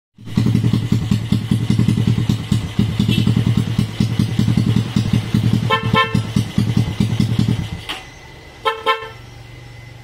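A Honda motorcycle's single-cylinder engine idling with a steady low rhythmic pulse, which stops about three-quarters of the way through. Its snail horn gives two short toots at about six seconds and two more near nine seconds.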